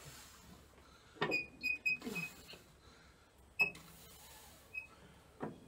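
Hand tools clinking and knocking against metal on a tractor engine as a water pump is fitted: a cluster of sharp clinks with a short metallic ring about a second in, another near the middle, and lighter knocks near the end.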